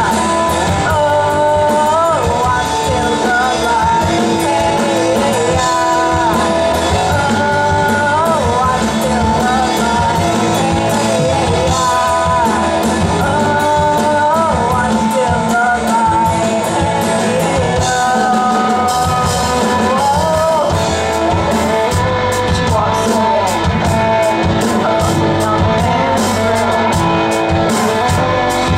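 Live rock band playing a song: a lead vocal over electric guitars and drums, loud and steady without a break.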